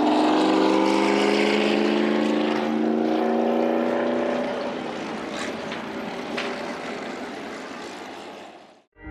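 Stock race car V8 engine at full throttle, its pitch rising slowly as it accelerates away and fades. The sound cuts off abruptly near the end.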